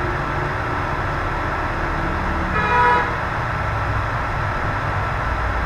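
Steady background hum of road traffic, with one short horn toot, a single held note, about two and a half seconds in.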